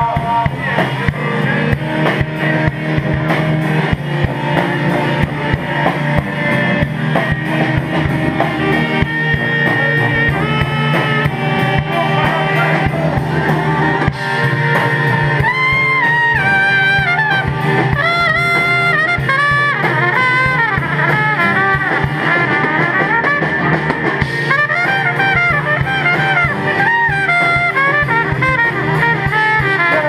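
Live band with drum kit, electric guitar, saxophone and brass playing an up-tempo song; a trumpet line comes in about halfway through and carries on over the band.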